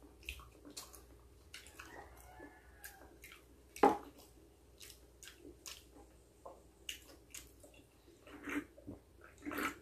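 Close-up eating sounds: quiet chewing and scattered small mouth clicks, with one sharper click about four seconds in, then swallowing as juice is drunk from a can near the end.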